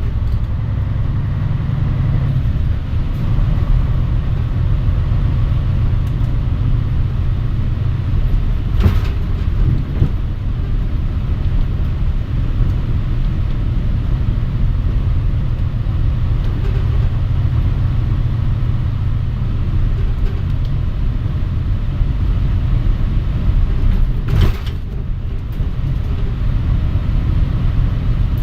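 Mitsubishi Fuso Aerostar city bus heard from inside the cabin while under way: a steady low diesel engine and road drone. A couple of brief sharp noises come about nine seconds in and again near the end.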